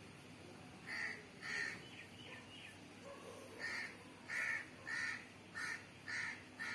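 A bird calling: eight short calls, two about a second in, then six in a quick, evenly spaced run from nearly four seconds in.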